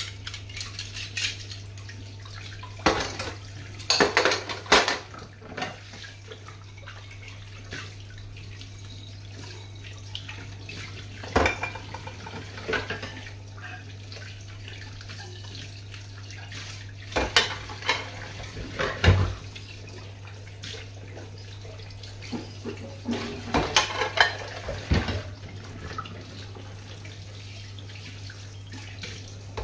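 Hand-washing dishes at a stainless steel sink: ceramic bowls and plates clatter and cutlery clinks as they are rinsed under the running tap and stacked on the draining board, in four bursts of clattering. A steady low hum sits underneath.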